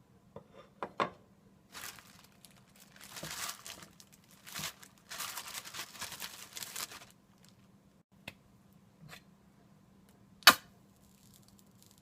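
Kitchen handling sounds while preparing onion rings. There are a few light taps, then several seconds of rustling and crinkling, and one sharp click near the end.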